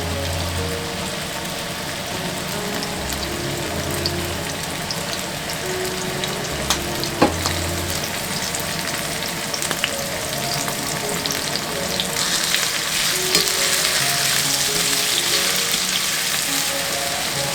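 Food sizzling in a frying pan as it is stir-fried, with a few sharp clicks of a utensil against the pan; the sizzle grows louder about twelve seconds in.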